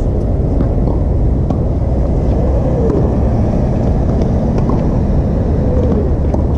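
A steady low rumble, with faint sharp knocks of a tennis ball being struck back and forth in a rally.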